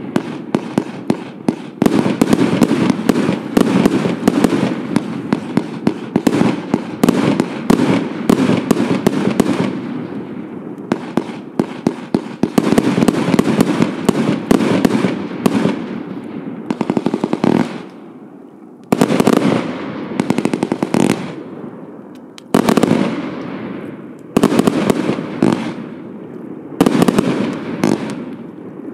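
Hallmark Vanquish firework firing a rapid stream of shots that burst into crackling stars. The firing eases off about two-thirds of the way through, then fresh volleys start suddenly four times, each fading out into crackle.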